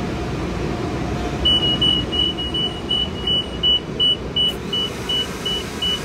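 Self-serve car-wash vacuum machine beeping as a bill is fed in: a run of short high beeps, about four or five a second, starting about a second and a half in, over a steady low rumble.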